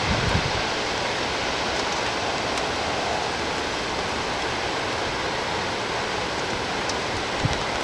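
Steady rain falling during a thunderstorm, an even hiss, with a couple of brief low thumps just after the start and near the end.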